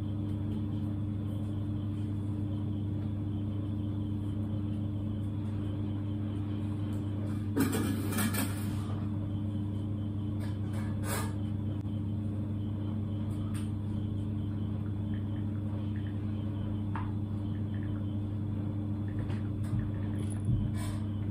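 A steady low mechanical hum, like a running room appliance, with a short burst of rustling and clatter about eight seconds in and a few faint knocks and clicks.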